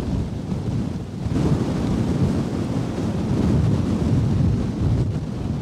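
Very strong wind buffeting the camera microphone: a loud, gusting rumble that eases briefly about a second in and then picks up again.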